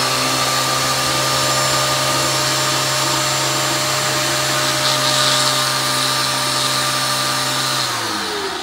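STARQ ST1800U electric pressure washer's 1800 W universal motor and pump running steadily, free of load with the outlet hose off while it primes and draws water from the bucket. Near the end it is switched off and the pitch falls as the motor winds down.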